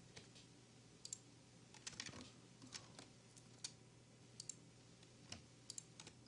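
Faint, irregular clicks of a computer keyboard and mouse over near silence.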